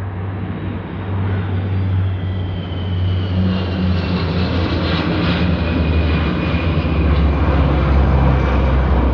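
Aircraft flying low overhead: a steady engine drone that drops in pitch over the last few seconds as it passes, with a fainter high whine above it.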